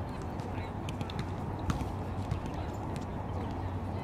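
Sneakers squeaking on a gym floor during volleyball play, over the steady din of the hall, with a few sharp knocks from the ball or feet.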